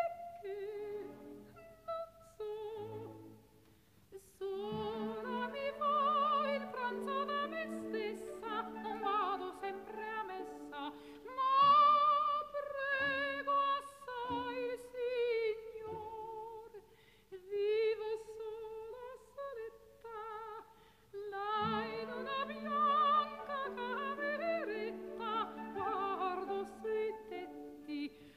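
Slow music with a high singing voice holding long, wavering notes over a steady held low note.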